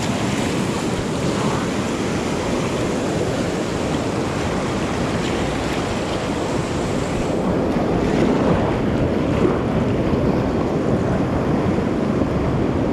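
Steady rush of river whitewater running through rapids, with some wind buffeting on the microphone. The rush gets a little louder about seven seconds in.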